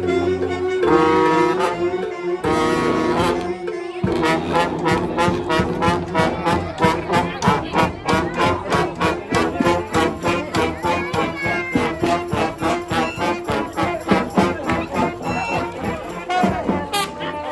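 Street brass band playing: trombones, trumpets and saxophones hold long notes, then about four seconds in a fast, steady beat comes in under the horn lines.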